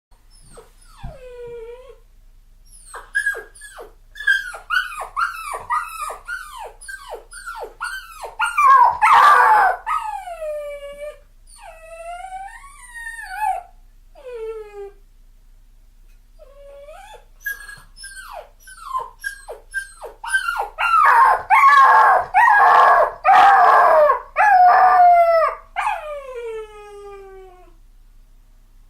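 A puppy crying: series of short, high-pitched whimpers and yips, each falling in pitch, building to louder overlapping cries twice and trailing into longer drawn-out falling whines.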